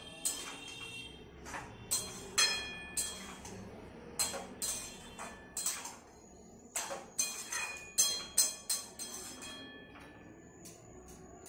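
Metal spatula knocking and scraping against a steel cooking pan as cabbage is stirred: a run of irregular clinks, some with a short metallic ring.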